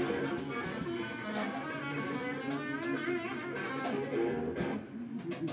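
Electric guitar being played, picked notes and chords, with wavering, bent notes about two to three seconds in.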